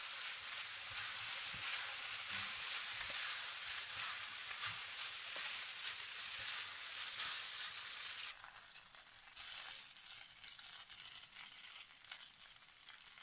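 Orzo, minced meat and vegetables sizzling in a hot pan while a wooden spatula stirs them through, a steady hiss with small clicks. About eight seconds in the sound drops suddenly to a faint hiss.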